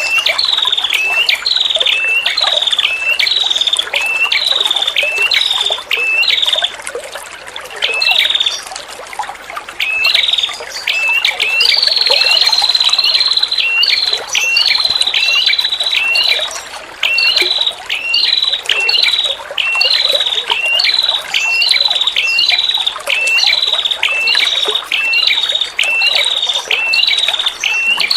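A female prenjak calling over and over, short hooked notes about twice a second, with a brief lull a little before halfway and then one long drawn-out note before the quick calls resume. Under it runs a steady trickle of flowing water.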